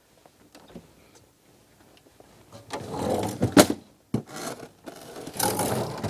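Pull-out freezer drawer of a fridge-freezer being slid open and shut, with a sharp knock about halfway through and sliding noise again near the end.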